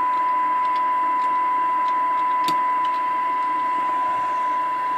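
Steady 1 kHz test tone with hiss coming through the Browning Golden Eagle Mark IV CB radio's receiver audio: a very weak (0.05 microvolt) AM test signal modulated 30% with a 1 kHz tone, being demodulated for a SINAD sensitivity measurement. A few light clicks from test-set buttons sound over it, the clearest about halfway through.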